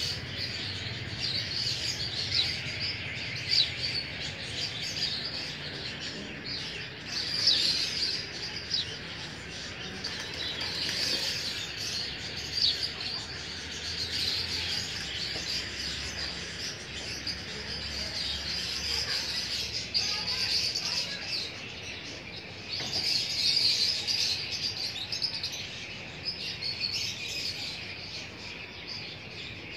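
A dense, continuous chorus of many small birds chirping and twittering at a high pitch, growing louder in patches about a third of the way in and again past the three-quarter mark.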